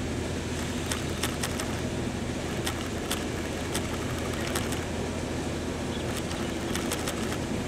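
Preserved passenger train hauled by a Class 09 diesel shunter, heard from an open carriage window: a steady low diesel drone with scattered light clicks from the wheels running over the track.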